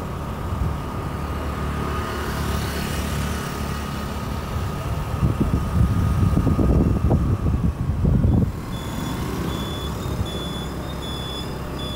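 A road vehicle on the move: a steady low engine and road rumble, which grows louder in the middle. About nine seconds in, a regular electronic beeping starts, about one and a half beeps a second.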